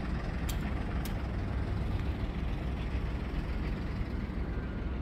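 Heavy truck's diesel engine idling with a steady low rumble, with two faint clicks in the first second.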